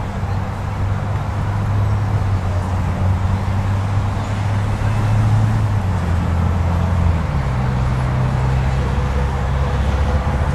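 A low, steady engine-like drone, such as a motor vehicle running nearby, shifting in pitch about seven seconds in.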